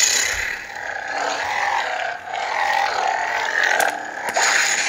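Lightsaber sound effects from a Proffie v2 soundboard through a 28 mm speaker: a steady hum with swing sounds swelling and fading as the lit blade is moved.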